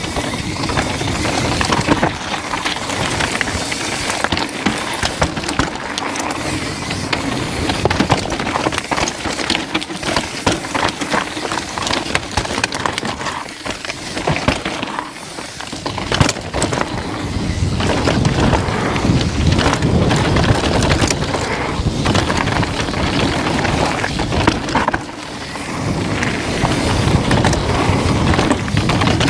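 Downhill mountain bike descending a rough trail at speed: tyres rumbling over rock and gravel, with a constant clatter of chain, suspension and frame knocks, and wind buffeting the action camera's microphone. The noise eases briefly twice, around halfway and near the end.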